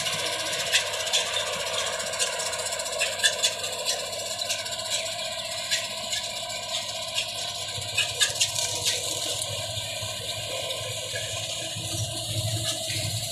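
New Holland combine harvester running while cutting wheat: a steady engine and threshing drone with a few steady whining tones and scattered sharp clicks.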